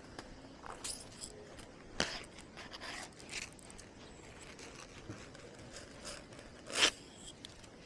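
Close crunching and rustling with scattered sharp clicks and scrapes; the loudest click comes about seven seconds in.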